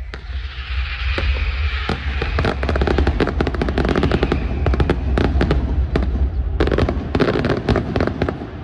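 Fireworks display: rapid volleys of sharp bangs and crackles from bursting shells, densest from about two seconds in, over a steady low rumble.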